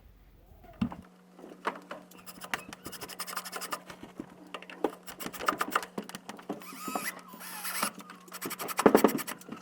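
Irregular scratching and clicking handling noises, denser in the middle and loudest near the end, over a steady low hum.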